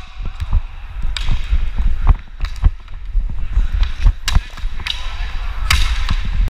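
Inline hockey skates rolling fast over the rink floor, with a run of sharp clacks and taps from stick, ball and wheels over a deep rumble of wind buffeting the helmet camera; the sound cuts off abruptly near the end.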